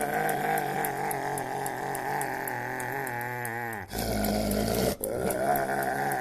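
A dog making a long, wavering growl-like vocalization whose pitch rises and falls continuously. It breaks off briefly about four and five seconds in.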